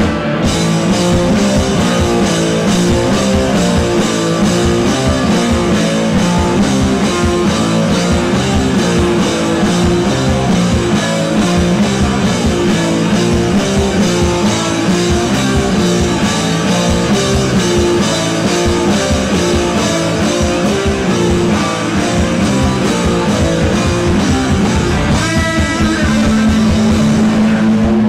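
Live heavy rock band of electric guitars, bass and drums kicking in together at full volume right at the start, after a lone guitar, then riffing steadily with the drums.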